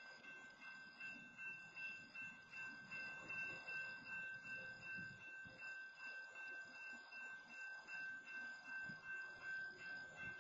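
Railroad crossing warning bell ringing faintly and steadily at a blocked crossing, about two strokes a second, over a low rumble.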